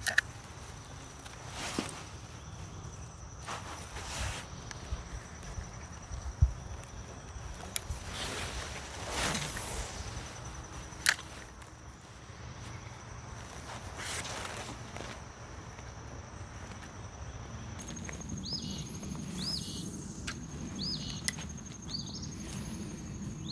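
Riverside ambience: an insect keeps up a steady, high, thin buzz, over scattered clicks and swishes of fishing tackle and kayak handling. Near the end a few short high chirps come in.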